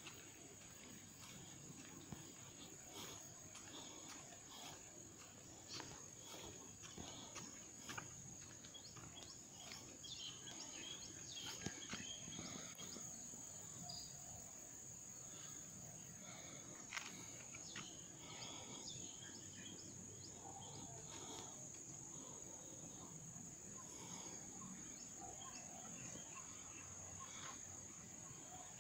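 Steady high-pitched drone of insects, with faint scattered clicks and taps.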